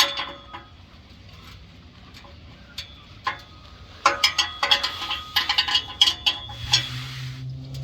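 Hand tools clinking on the exhaust's metal fittings, with sharp ringing clicks that become a quick run of ratchet-like clicking from about four seconds in. A low steady hum comes in near the end.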